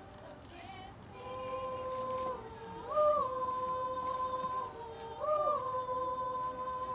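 Female choir singing long held notes, starting about a second in, with the pitch lifting briefly twice, about three seconds in and again about five seconds in.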